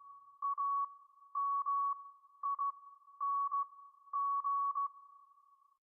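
Morse code beeping: a single steady high tone keyed on and off in short dots and longer dashes, sent in groups with short gaps between, stopping shortly before the end.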